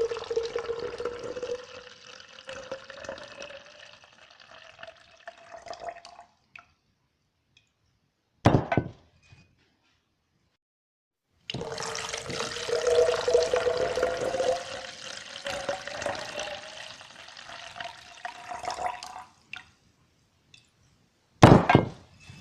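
Water pouring into a container, heard twice, each time with a tone that rises as the container fills. Between and after the pours come two short, loud bursts of noise.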